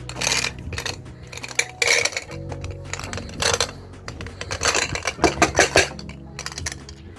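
Glass marbles clicking and rattling along a marble run track in several quick clusters, the busiest near the end, over background music.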